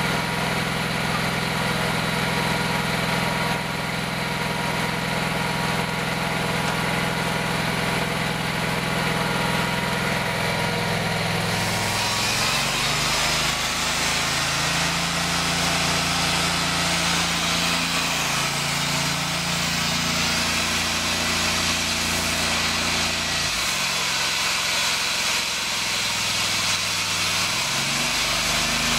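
Engine-driven blowing machine for bead cavity-wall insulation running steadily. About twelve seconds in a rushing hiss gets louder, and the hum shifts pitch a few times after that.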